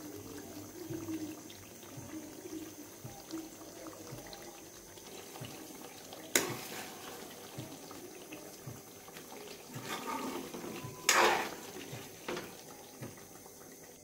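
A ladle moving through thick chicken gravy in a metal kadai: soft wet sloshing and scraping, with a sharp knock about six seconds in and a louder wet scrape about eleven seconds in.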